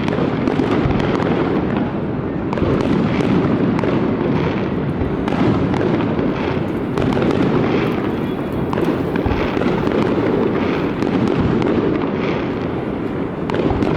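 Fireworks display going off in a dense, continuous barrage of bangs and crackling, with no break.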